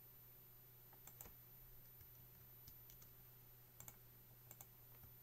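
Faint clicks of a computer mouse: a few single clicks and quick pairs, over a low steady hum.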